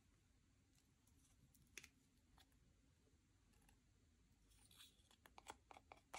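Near silence with faint clicks and small taps from slime and makeup being handled: two single clicks in the first half, then a quick run of them near the end.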